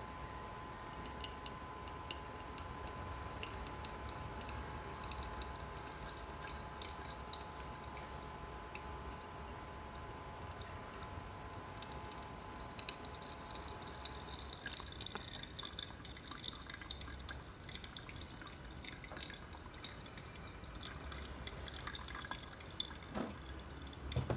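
Hot water poured faintly from a gooseneck kettle onto paper filters in V60 drippers, with water dripping through into the glass servers below: the filters being rinsed before brewing.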